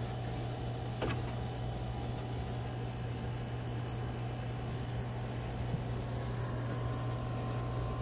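Steady low machine hum with a faint, rapid and even high-pitched pulsing above it, and a single click about a second in.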